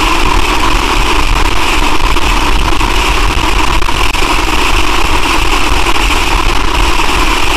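Heavily distorted, effect-processed logo audio: a loud, steady, harsh noise with a strong low hum, dipping briefly about four seconds in.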